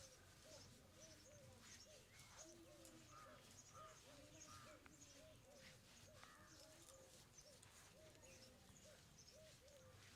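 Faint bird calls: a steady run of short, repeated arched notes, about two to three a second, with fainter higher chirps among them.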